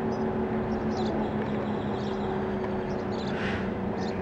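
Outdoor warning siren sounding a steady low drone whose pitch sags slightly.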